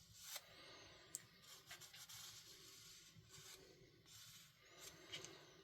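Marker rubbing over the steel bevel of a hair shear blade in a run of faint, uneven strokes, colouring in the edge before sharpening.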